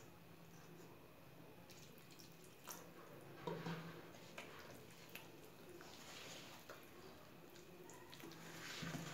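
Faint wet mixing of a thick flour-and-milk batter in a bowl as milk is worked in. There are a few light clicks, a louder knock about three and a half seconds in, and soft swishes near the middle and end.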